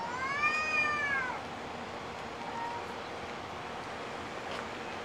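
Cat giving a long drawn-out meow that rises and falls in pitch over about a second and a half, then a short, fainter call about two and a half seconds in: one of two cats calling back and forth to each other.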